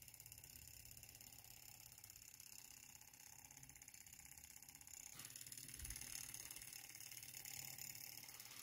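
OKMO J06D miniature vertical Ross-yoke Stirling engine running on its spirit burner: a faint, fast, even mechanical ticking from its tiny linkage and flywheel. About five seconds in there is a brief scrape and a low bump as the engine is handled, and the sound gets a little louder.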